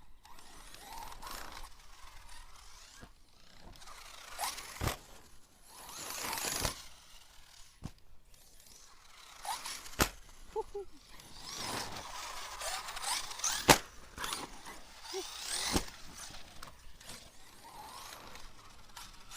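A 1/7-scale Arrma Mojave RC buggy's motor whines up and down as it is driven and jumped, with several sharp landing thuds, the loudest about two-thirds of the way through. Underneath runs a crunchy clicking from the drivetrain, the sign of a stripped differential.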